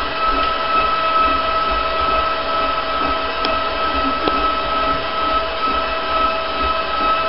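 Electric stand mixer running at a steady speed with a constant motor whine, beating batter in its steel bowl, with a couple of light clicks midway.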